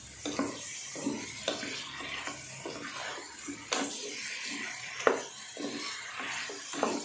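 A wooden spatula stirring and scraping chicken pieces around a stainless steel pot, in short irregular strokes about twice a second. The frying oil sizzles lightly underneath.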